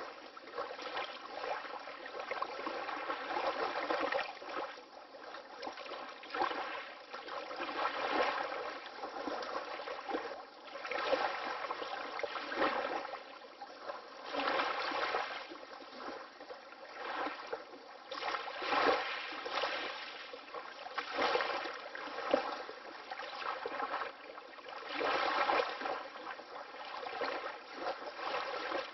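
Water lapping gently in small waves: a soft splashing wash that swells and fades every two to three seconds, with almost no low rumble.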